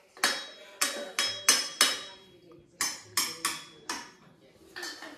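Hard objects struck repeatedly: about a dozen sharp, irregularly spaced knocks, each with a short ringing tone, with brief pauses just after the middle and near the end.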